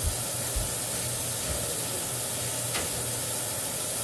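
A steady hiss with a few soft low thumps and a single brief click near the three-second mark.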